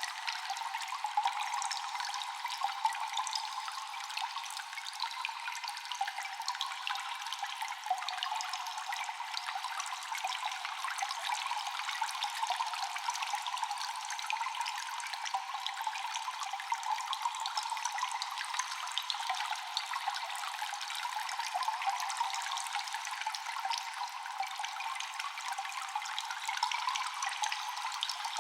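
Water dripping and trickling in a cave: a dense, steady patter of many small drops over a light running trickle, with no low end.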